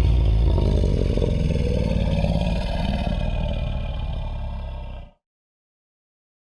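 Zilla Jr. monster sound effect: a long, rumbling roar with a heavy low growl under higher pitched tones. It lasts about five seconds, slowly fading before it cuts off abruptly.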